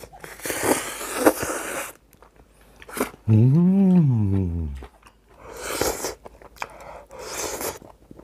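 A man eating a hot mouthful of cheese-grilled clam and rice, huffing breath out through pursed lips to cool it, with chewing. About three seconds in he hums one drawn-out "mmm" of enjoyment that rises and then falls in pitch, followed by more breathy exhales.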